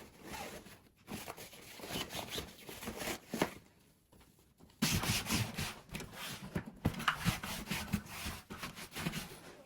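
Rustling and rubbing of things being handled, with small clicks and tearing sounds. About five seconds in, a louder, denser noise starts and keeps going.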